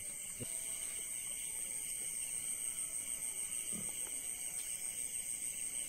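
Night insects, crickets, trilling in a steady high-pitched chorus.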